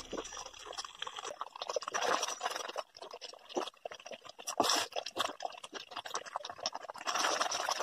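Thick fruit jam simmering in a steel pan, popping and spluttering irregularly as bubbles burst, with a wooden spoon stirring and scraping through it.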